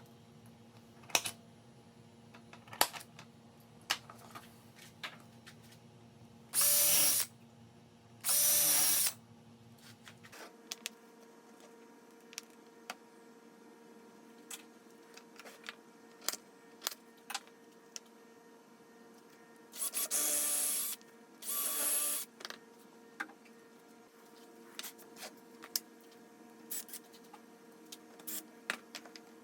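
Power drill driving screws in four short runs of about a second each, in two pairs, with scattered clicks and knocks from handling the wood between them.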